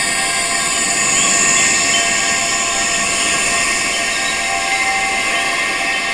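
Tuned metal wind chimes ringing continuously, many overlapping held tones sounding together from mid to very high pitch.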